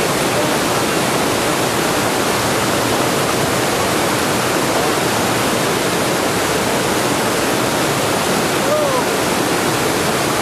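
Mountain stream cascading over rocks, a loud steady rush of water.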